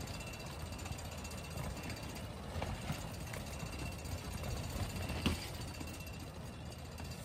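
Strong wind buffeting a tent, a steady low rumble with faint rattling of the fabric, and a sharp click about five seconds in.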